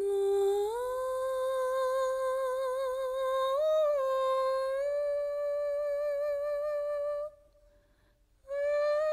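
A voice humming a slow melody in long held notes that step up and down. It breaks off for about a second near the end, then carries on.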